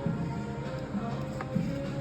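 Background music with steady held notes, and a faint click about one and a half seconds in.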